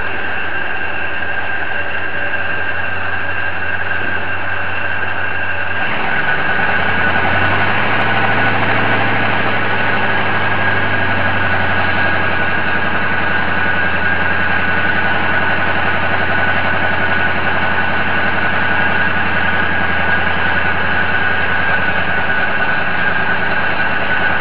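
A large engine running steadily, with a constant high whine over it. About six seconds in, its note steps up slightly and it runs a little louder from then on.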